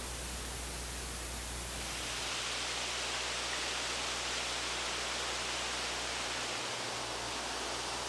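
Steady rushing noise with no distinct events, which grows brighter and a little louder about two seconds in.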